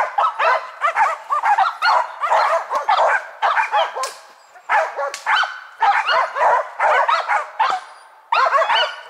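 Karelo-Finnish laikas barking rapidly and without letup, the treeing bark that holds a marten up in a tree, with short breaks about four seconds in and again near the end.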